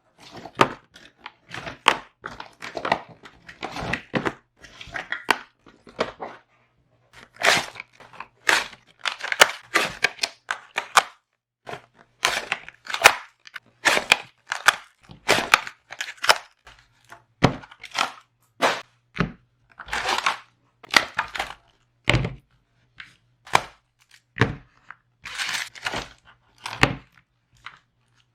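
Trading card trial deck packaging being torn open and handled: a long string of irregular short crackling, tearing and crinkling noises with brief pauses between them.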